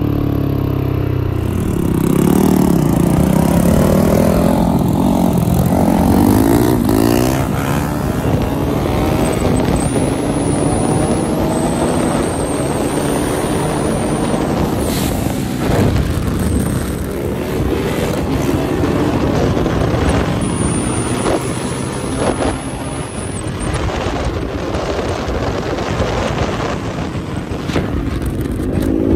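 Single-cylinder four-stroke dirt bike engine, a turbocharged Yamaha YZ450F, running at road speed and revving up and down through the gears, with heavy wind rush over the microphone.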